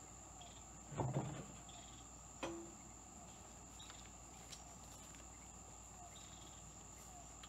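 Insects chirring steadily on one high pitch. Two short knocks sound over it, one about a second in and one about two and a half seconds in.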